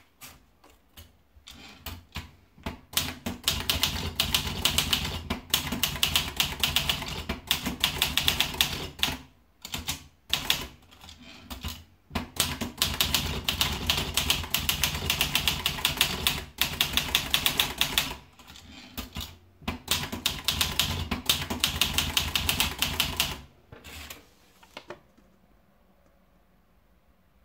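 Olivetti Lettera 32 manual portable typewriter being typed on: fast runs of key strikes in several long bursts with short pauses between them, stopping near the end.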